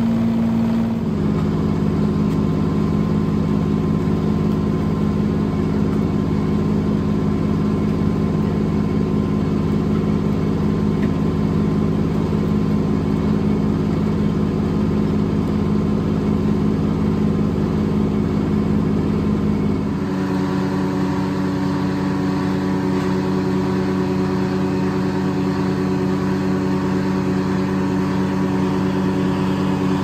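Old engine powering a circle sawmill, running steadily with no cutting heard. Its tone changes about two-thirds of the way through.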